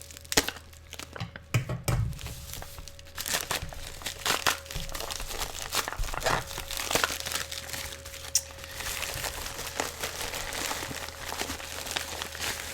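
Packaging crinkling and tearing as a mailed parcel is unwrapped by hand, with dense irregular crackles and rustles throughout.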